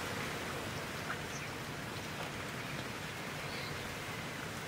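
Steady hiss of outdoor background noise, with a few faint ticks.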